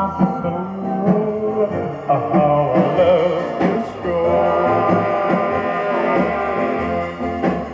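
A rock and roll record playing through a jukebox speaker: a singer holding notes with vibrato over a backing band with drums.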